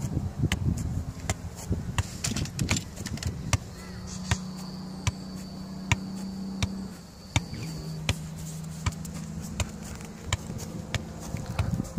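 Football being juggled: a steady run of short thuds as the ball is kicked and bumped up again, about two touches a second. A steady low hum comes in behind it for a few seconds midway.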